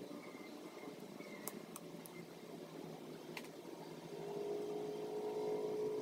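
Quiet room noise with a few faint small clicks, then a steady mechanical hum swells in about four seconds in and holds.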